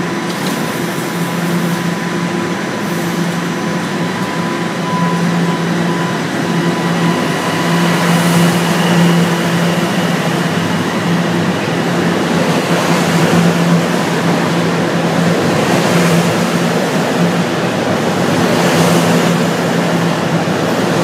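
Toronto subway train pulling out of the station, its electric motors humming steadily over the rumble of the wheels on the rails as it picks up speed, getting a little louder about eight seconds in.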